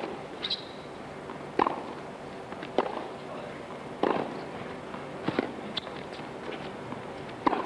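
Tennis rally: crisp racket-on-ball strikes trading from end to end, about five sharp hits roughly one every second and a quarter, with one short shoe squeak on the hard court near the start.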